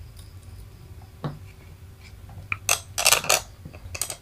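Light clicks and clatter of small hard objects being handled on a wooden workbench, a single click about a second in and a quick cluster about three seconds in, over a low steady hum.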